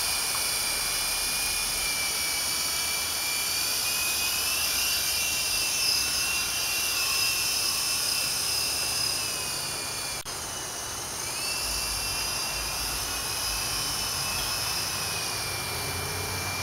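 The small electric motors of a 12-inch toy RC helicopter whining in flight, the pitch sliding up and down as the throttle changes. About ten seconds in there is a click and the whine drops lower, then climbs back a second or so later.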